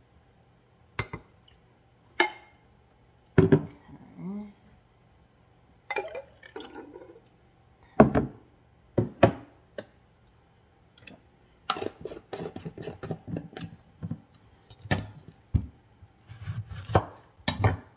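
Kitchen handling sounds: a glass measuring cup of orange juice knocking and clinking, then a chef's knife halving oranges on a wooden cutting board, a quick run of knocks and taps from about twelve seconds in.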